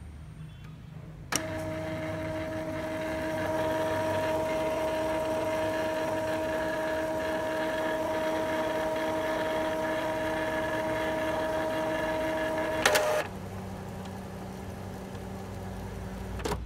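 Epson L-series ink tank printer running its print-head cleaning cycle. A motor starts with a click about a second in and whines steadily for about twelve seconds, then stops with a click. A lower, quieter hum follows until another click near the end.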